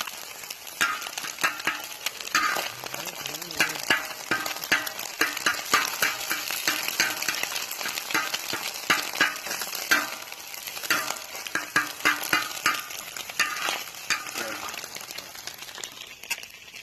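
Food sizzling on a hot plow-disc cooker while a metal utensil scrapes and stirs it against the disc, giving a steady hiss with frequent irregular clicks and scrapes that ease off near the end.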